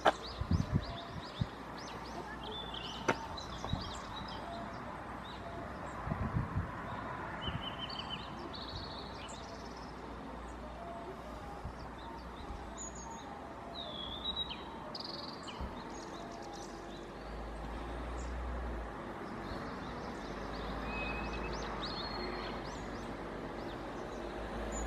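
Birds chirping and calling outdoors, many short high chirps and whistles over a steady background hiss, with a few low thumps in the first seven seconds.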